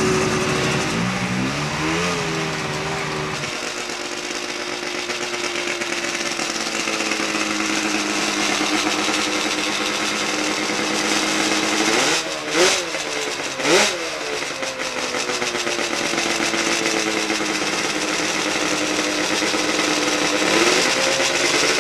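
Two-stroke snowmobile engines idling steadily, with two quick throttle blips about twelve and fourteen seconds in.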